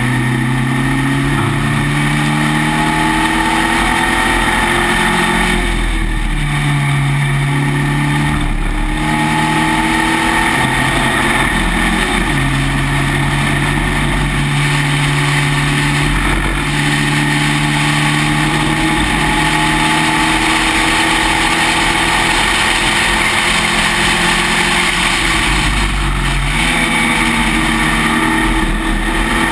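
Spec Racer Ford's four-cylinder engine at racing speed, heard from the open cockpit: its pitch climbs under acceleration and drops several times for shifts and lifts into corners, over a steady rush of air.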